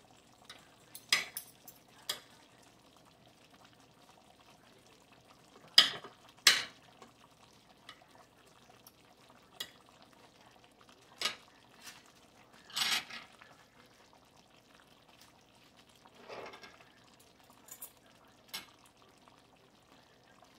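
Fork and spoon clinking and scraping on a dinner plate in sporadic strokes, with a longer scrape about thirteen seconds in.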